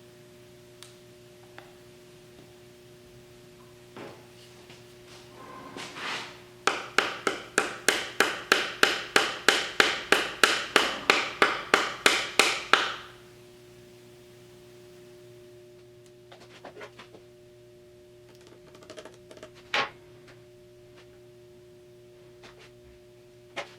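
A hammer tapping in a quick, even run of about nineteen blows, some three a second, starting about seven seconds in, then a few lighter scattered knocks later, over a faint steady hum. The blows drive wooden seal strips into the front sealing block of a Triumph TR6 engine.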